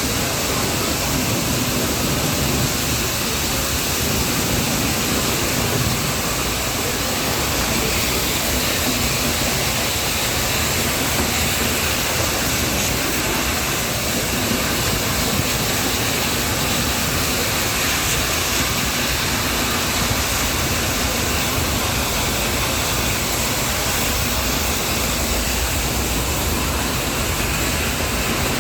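Nilgiri Mountain Railway toy train running, a steady, even rushing noise with a low rumble underneath that does not change.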